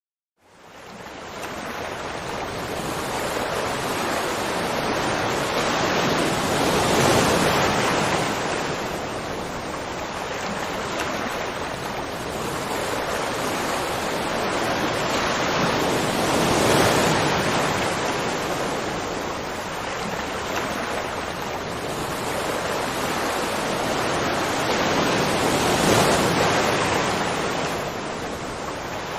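Continuous rush of water, a steady wash of noise that fades in over the first second and swells a little louder about every nine to ten seconds.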